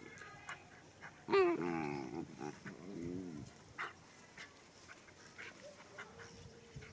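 An animal's drawn-out, wavering call about a second in, lasting about two seconds, with a few small clicks and scuffs around it.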